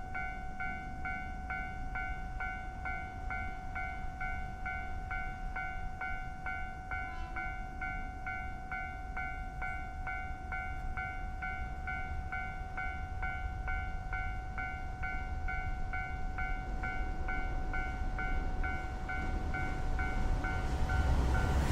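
Railway level-crossing warning bell ringing with an even electronic clang, about two strikes a second. Near the end, the rumble of an approaching train grows louder.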